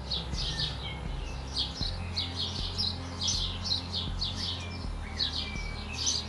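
Small birds chirping: a quick, uneven run of short high chirps, several a second, over a low steady hum.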